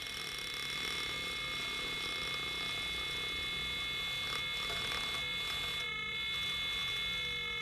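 A steady high-pitched electrical whine made of several held tones, with a few faint scrapes of a metal tool picking old adhesive off a phone's metal mid-frame.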